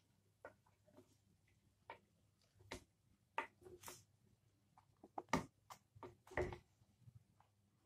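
A spatula stirring and lifting cooked biryani rice in a nonstick pot: faint, irregular scrapes and knocks, the loudest a little past halfway.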